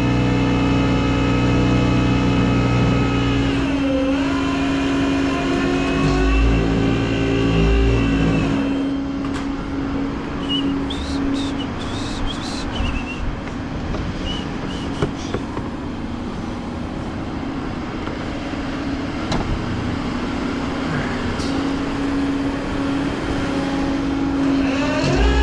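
Vehicle engine running steadily, its pitch dipping briefly about four seconds in. From about nine seconds in the steady tone gives way to a rougher, noisier stretch with scattered clicks and clanks, and the steady engine tone returns near the end.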